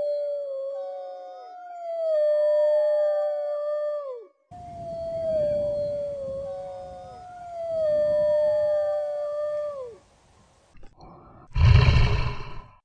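Wolves howling in chorus: long overlapping howls, each held steady and then dropping in pitch at its end. Near the end comes a short, loud, rough tiger growl.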